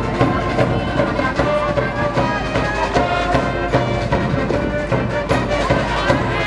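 High school brass band playing a baseball cheering tune in the stands, with trumpets and other brass over a steady drum beat.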